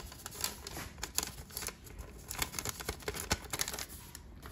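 Paper seasoning packet crinkling and rustling as it is shaken and tapped empty, a rapid run of small clicks.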